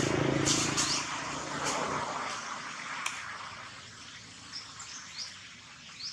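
A motor vehicle's low engine hum, loudest at the start and fading away over the first couple of seconds as it passes, with a few short, high, rising bird chirps scattered through.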